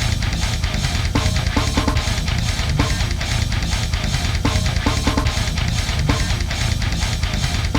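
Heavy metal music with distorted electric guitar and a driving drum kit beat.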